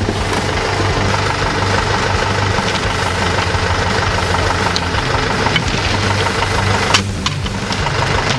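An engine idling steadily, with a single sharp knock about seven seconds in.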